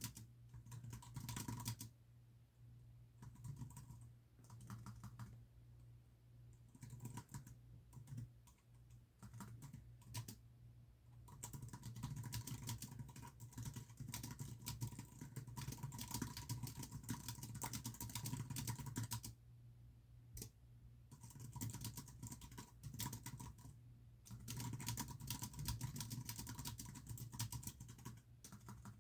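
Typing on a computer keyboard: fast runs of key clicks broken by short pauses every few seconds. A steady low hum sits underneath.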